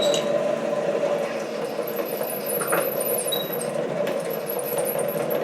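SC2 mini lathe running steadily while an HSS parting tool cuts 316 stainless steel, with high chirping squeaks from the cut in two spells from about two seconds in.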